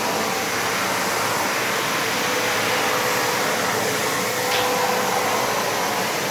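Kärcher WD 3 1000-watt wet-and-dry vacuum running steadily, sucking up water from a wet floor, with a faint whine over its rushing noise.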